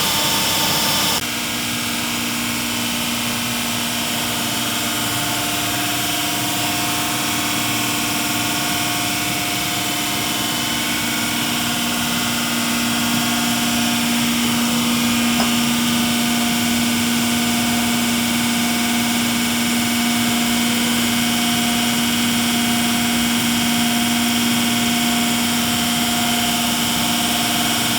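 Weeke BHP200 flat-table CNC machining center running: a steady machine whine with a constant hiss, dropping slightly in level and changing pitch about a second in.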